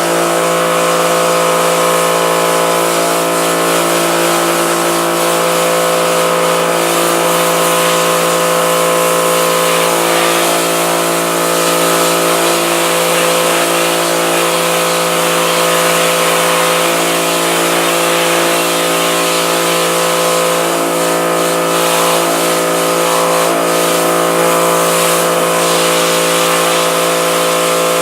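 Pressure washer running steadily, its motor and pump giving a constant hum under the hiss of the water jet spraying a screen-printing screen to blast out leftover emulsion.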